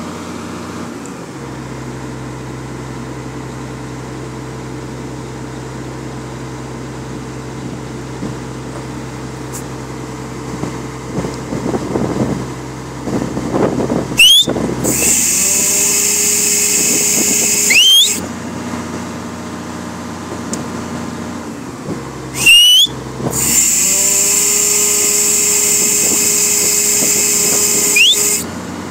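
Caterpillar 345C L excavator's diesel engine running steadily while driving its hydraulic pump through a hydraulic flow tester. Twice the oil is forced through at high pressure, giving a loud hiss for about four to five seconds each time, with a short rising squeal at the start and end of each.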